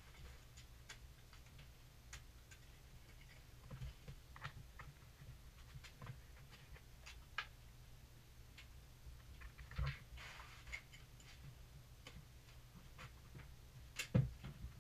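Scattered light clicks and taps of floor tiles and tools being handled on a plywood subfloor, with a brief scrape about ten seconds in and a louder knock near the end, over a low steady hum.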